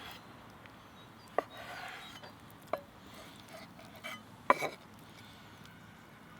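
A metal utensil knocking and clinking against a cooking pot a few times, the loudest a quick double knock about two thirds of the way in, with light scraping between.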